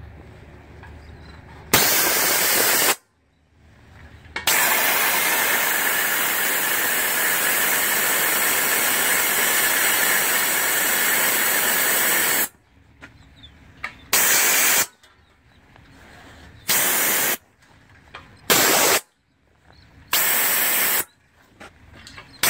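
Compressed air blasting out of a truck's air tank drain valves with a loud hiss as they are pulled open: a burst of about a second, one long blast of about eight seconds, then four short bursts in quick succession.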